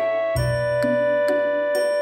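Background music: a simple melody over a bass line, its notes changing about every half second.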